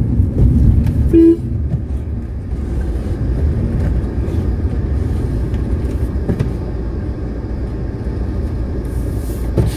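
Steady low rumble of engine and road noise inside a moving car, with a short car-horn toot about a second in.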